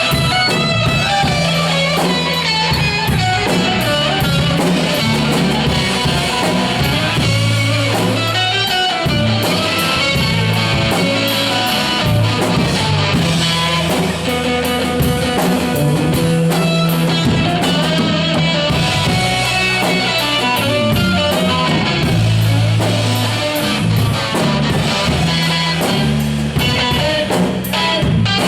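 Rock band playing an instrumental passage without vocals: guitar lines over a walking bass line and a drum kit.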